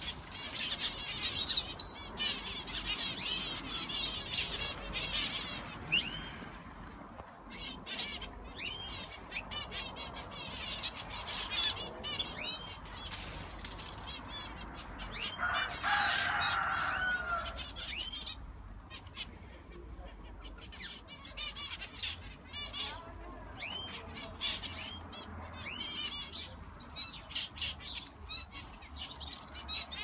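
A flock of small aviary finches chirping, with many short repeated calls overlapping, and wing fluttering among them. A louder burst with a lower falling call comes about halfway through.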